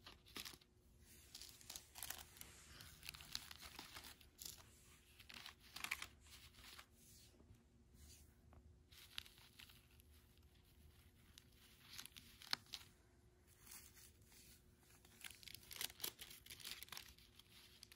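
Faint, intermittent rustling and crinkling of paper as small green paper squares are handled and pressed onto a paper-plate wreath.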